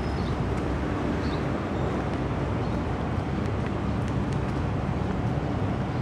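Steady rumble of road traffic, with a few faint clicks.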